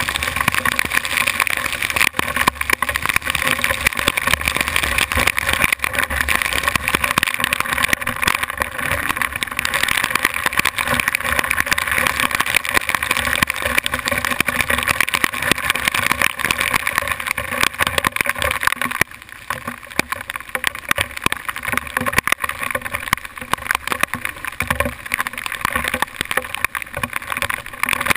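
Hail and rain pelting the helmet camera in a dense, crackling patter, over the steady running of a 2008 Kawasaki KLR650's single-cylinder engine on a dirt trail. The pelting thins out a little about two-thirds of the way through.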